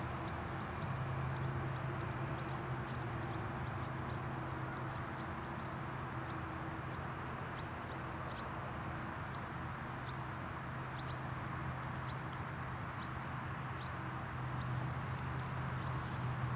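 Krone Big X 770 self-propelled forage harvester heard at a distance, running steadily while chopping silage maize: a constant low drone with a smooth wash of noise over it. Short, high ticks or chirps are scattered through it.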